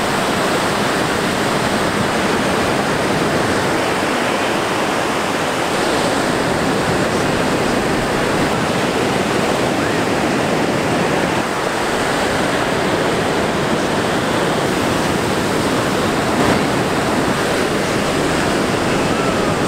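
Ocean waves breaking and whitewater rushing, a steady wash of noise without a break.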